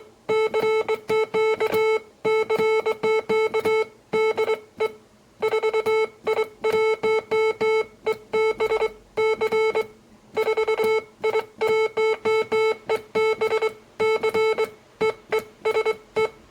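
Morse code sidetone, a steady beep keyed on and off by a vintage semi-automatic bug key, sending quick strings of dits mixed with longer dahs in runs broken by short pauses.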